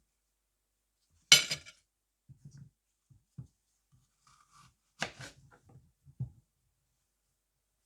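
Knife cutting through apple on a cutting board: two sharp, crisp cuts, about a second in and again about five seconds in, with light knocks of the blade on the board in between.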